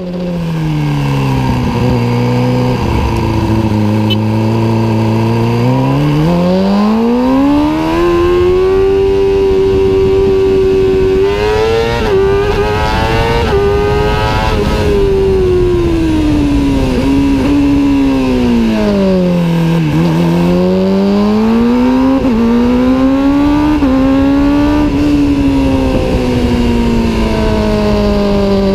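Kawasaki ZX-6R inline-four engine running loud through a Two Brothers aftermarket exhaust, revved up and down. It holds steady at lower revs for the first few seconds, climbs about six seconds in and stays high, drops back around twenty seconds in, then rises again and slowly eases off near the end.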